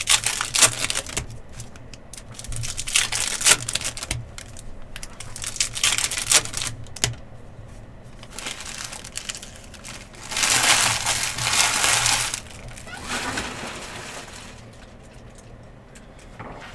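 Trading card packs being handled: foil wrappers crinkling and tearing and cards clicking as they are flicked through, with a longer rustle about ten seconds in.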